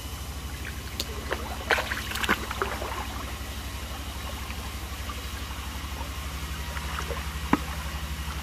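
Shallow ditch water splashing and sloshing as hands grope along the bottom, with a cluster of splashes about one to two and a half seconds in and a single sharp splash near the end, over a steady low pulsing hum.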